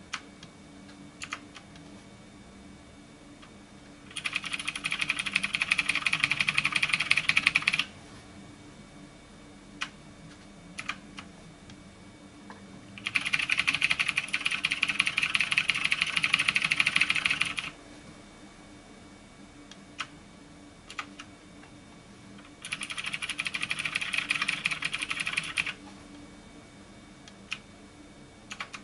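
Zalman ZM-K900M mechanical gaming keyboard: single key presses clicking now and then, broken by three bursts of very fast typing, each lasting three to five seconds.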